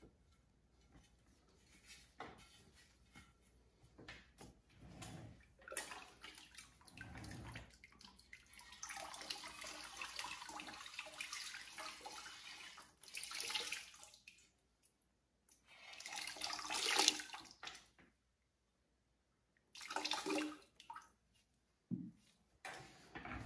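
Liquid pottery glaze poured from a plastic pitcher over the outside of an upturned bisque bowl, splashing and running off into a bucket of glaze below. It comes in several pours, the longest about nine to thirteen seconds in, with shorter ones later.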